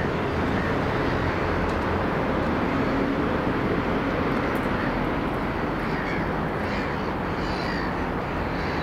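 Steady rumble of distant road traffic and engines with a low hum underneath. A few short bird calls come in over the last few seconds.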